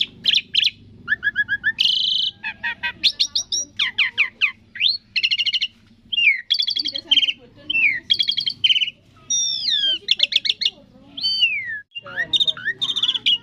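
Asian pied starling singing a rapid, varied song: gliding whistles that rise and fall, mixed with quick chattering runs of repeated notes, with a short pause near the end.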